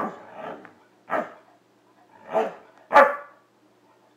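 Dog giving a series of short, pitched barks in its "talking" manner, about five in four seconds, the one near the end the loudest.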